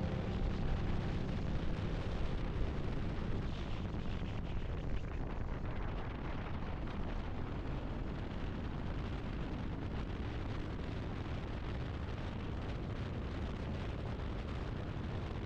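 Wind rushing over the microphone of a motorcycle riding at steady road speed, a dense steady rumble with road and engine noise underneath.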